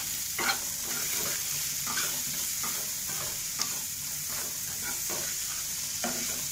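Onion-tomato masala frying in oil in a non-stick kadai, with a steady sizzle, while a spatula stirs it in repeated scraping strokes about once or twice a second.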